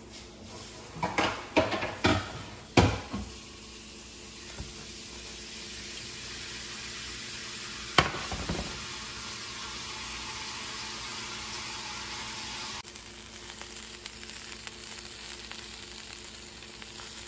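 Eggs sizzling in hot sauce in a nonstick frying pan. There are several clattering knocks about one to three seconds in and a sharp knock of the pan about eight seconds in. The sizzle then runs louder for a few seconds and eases off near the end.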